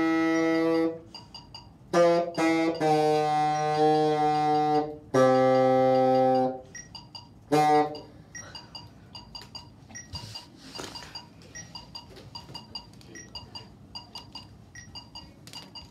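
Bassoon playing a handful of held notes, a couple of them short and two longer, stopping about eight seconds in. After that only faint clicks and rustling as the bassoon is handled.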